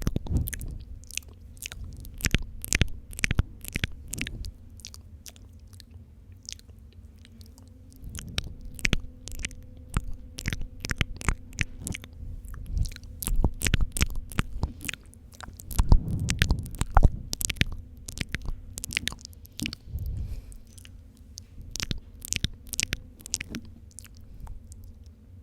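Wet mouth sounds made close to the microphone for spit painting: rapid, irregular clicks, smacks and lip pops, coming in denser runs with short thinner stretches between.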